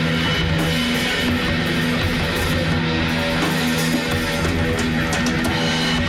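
Band playing loud, heavy rock: strummed electric guitar over bass and a drum kit with cymbals crashing.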